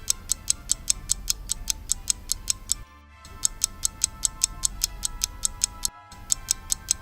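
A phone ringtone: a fast, even ticking at about five ticks a second over a steady electronic tone, breaking off briefly about three and six seconds in as it loops.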